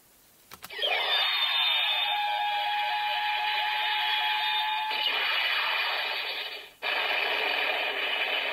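Special-move sound effect from the CSM Kamen Rider Typhoon henshin belt's small speaker, one of Kamen Rider No. 2's finishers. A click, then a falling swoop and a held tone, followed by a long rush of noise that cuts out briefly near the end before carrying on.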